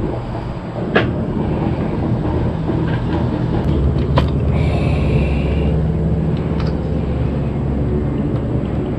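A steady low mechanical rumble, with sharp clicks about a second in and again about four seconds in as small plastic parts and wire connectors are handled.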